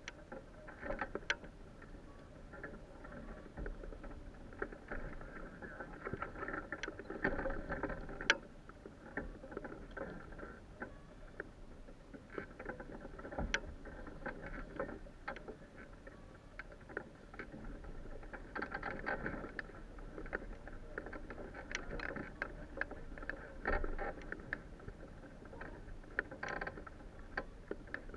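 Hang glider's sail fabric rustling and flapping in the wind, with frequent scattered clicks and knocks from the frame and harness fittings.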